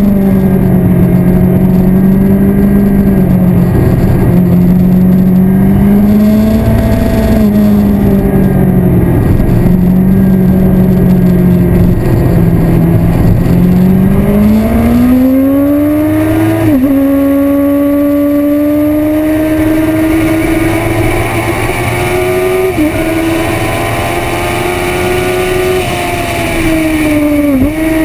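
Yamaha R1 sport bike's inline-four engine heard onboard at track speed, with wind noise on the microphone. The engine note wavers at middling revs through the first half, then rises as the rider accelerates, dipping briefly at each quick upshift, three times in the second half.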